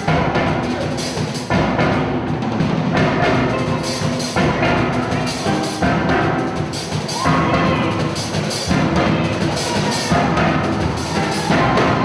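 Steel orchestra playing live: massed steel pans with drums keeping a steady beat.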